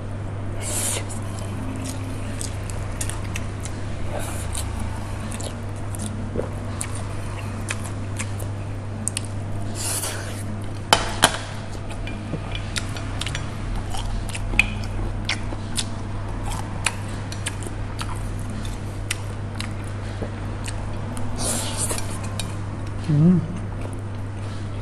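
Chopsticks clicking and scraping on a ceramic plate while noodles are eaten, with three short bursts of slurping, over a steady low hum. A brief voice sound comes near the end.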